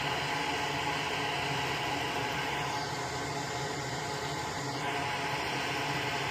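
Steady whirring hum of a fan-driven machine, even in level throughout.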